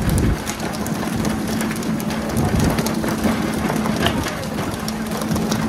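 Fishing boat's engine running with a steady low hum under a constant hiss of splashing water, with scattered sharp taps and clicks.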